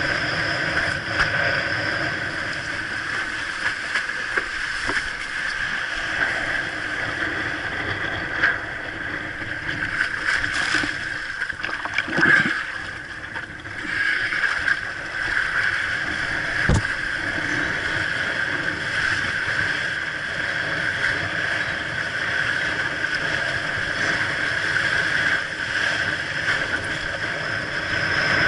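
Wind buffeting the microphone and water rushing past a windsurf board under sail, steady throughout, with a surge about twelve seconds in and one sharp knock a few seconds later.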